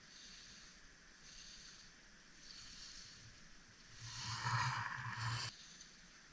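Ski racer's skis carving and scraping across the snow as they pass close by, a loud rushing hiss that cuts off suddenly. Fainter scraping of skis comes and goes before it.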